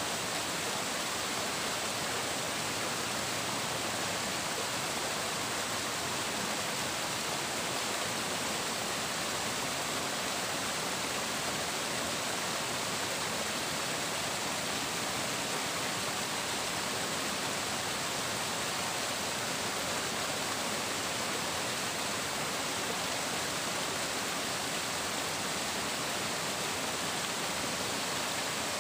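Flowing water, a steady, even rush and babble of a stream or small waterfall with no pauses or changes.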